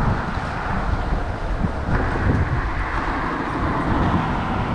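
Steady wind buffeting the microphone over a low rumble of road traffic crossing the bridge.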